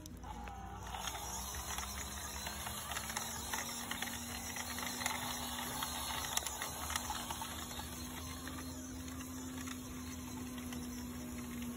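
Small electric motor and gears of an RC crawler truck whining steadily as it drives over wet dirt and gravel, its pitch stepping up slightly a couple of times, with faint crackles from the tyres on pebbles and twigs.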